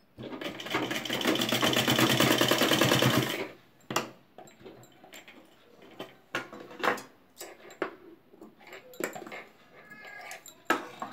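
Sewing machine running through folded cloth for about three and a half seconds, a fast even run of stitches, then stopping. After that come scattered clicks and rustles of the cloth being handled at the machine.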